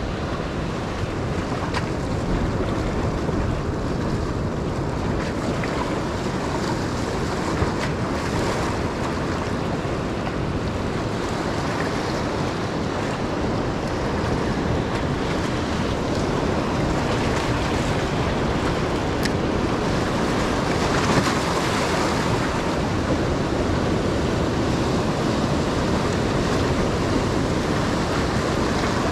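Sea surf washing over a rocky shore, a steady rush of water noise, with wind on the microphone.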